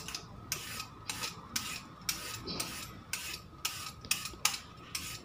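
Vegetable peeler scraping the skin off a raw carrot in quick repeated strokes, about two a second.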